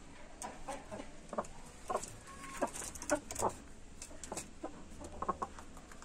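Aseel chickens clucking, short separate clucks coming irregularly, a dozen or so, loudest in the middle of the stretch.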